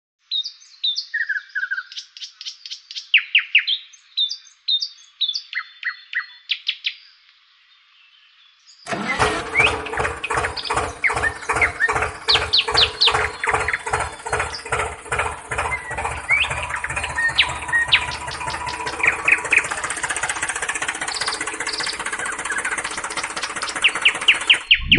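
Bird chirps for the first several seconds. After a short pause, a music track with a steady beat starts, with bird chirps continuing over it.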